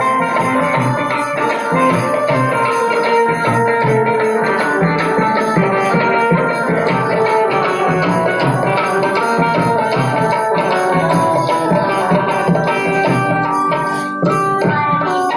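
Instrumental music with a melody of held notes over steady drumming and percussion, an interlude between sung verses of a Hindi devotional folk song.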